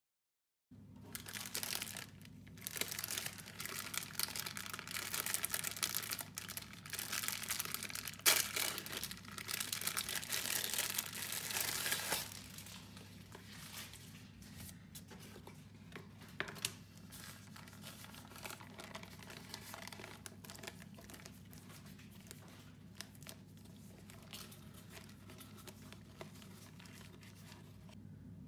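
Plastic packaging and baking paper of a ready-made puff pastry roll crinkling and tearing as it is opened, loud for about the first twelve seconds. After that comes quieter rustling of the paper and a few light clicks as the pastry is unrolled, over a steady low hum.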